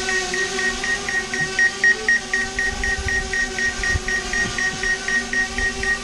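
Small quadcopter camera drone hovering, its propellers giving a steady hum of several pitches, with a high tone pulsing about four times a second.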